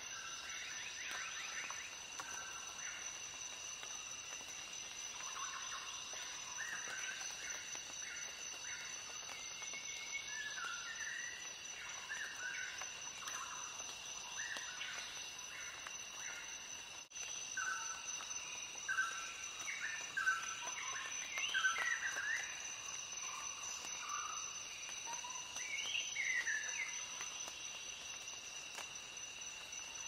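Nature ambience: birds chirping in short, varied calls over a steady high insect drone. The calls come thicker in the second half, after a brief dropout a little past halfway.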